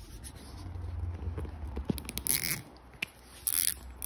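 A plastic zip tie being pulled tight around the front motor cable on an e-bike fork, its teeth ratcheting through the lock in two short rasps about a second apart, with small clicks of handling around them.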